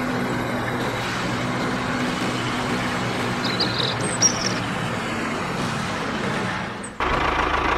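Steady mechanical running sound with a low hum as a toy tracked drilling vehicle crawls over sand, with a few faint bird chirps. About seven seconds in it gives way to a deeper rumble.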